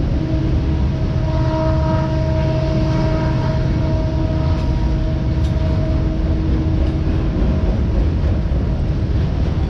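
Autorack freight cars rolling past on the rails with a steady, loud rumble and clatter of wheels. A steady whining tone rides over it and fades out about seven seconds in.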